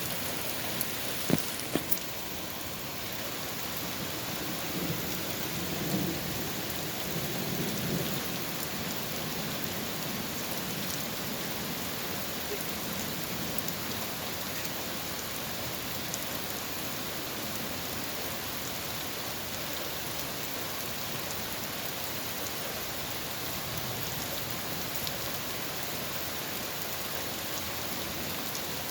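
Heavy, steady rain, with two sharp knocks about a second in and a low rumble of thunder a few seconds later.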